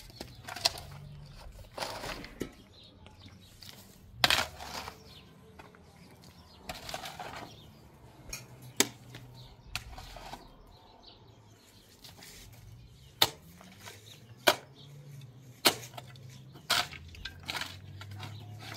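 A string of irregular sharp knocks, about eight, the loudest about four seconds in, with scraping and rustling between them.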